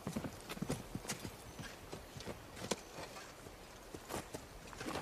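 A horse's hooves clopping as it is ridden at a walk: irregular hoof strikes, one louder about two and a half seconds in.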